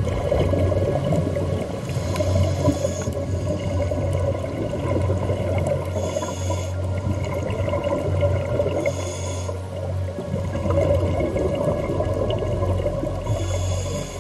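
Scuba regulator breathing heard underwater: a short hissing inhalation about every three to four seconds, with bubbling exhalations in between.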